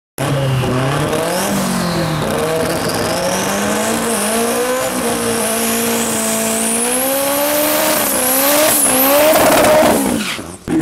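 Drag-race pickup truck doing a burnout: engine held at high revs while the rear tyres squeal, the engine pitch wavering and climbing and the squeal rising higher in the second half. The sound cuts off sharply near the end.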